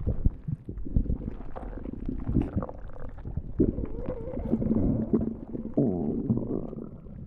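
Stomach growling and gurgling: wavering, drawn-out growls mixed with quick bubbling pops.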